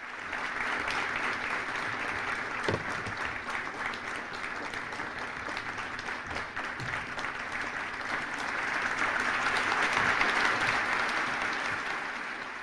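A hall audience applauding steadily, a dense patter of many hands clapping that grows to its loudest about ten seconds in and begins to fade near the end.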